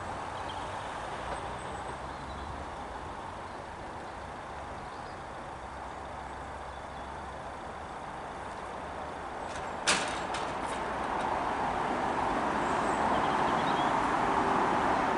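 Diesel passenger train at the platform with its engine running. There is a sharp clunk about two-thirds of the way through, with a few smaller clicks, and then the engine noise rises and grows louder as the train pulls away.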